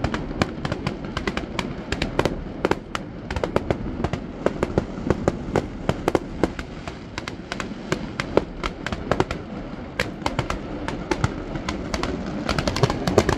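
Fireworks display going off in rapid succession: many sharp cracks and bangs at irregular intervals over a low rumble, thickening into a denser run of crackles near the end.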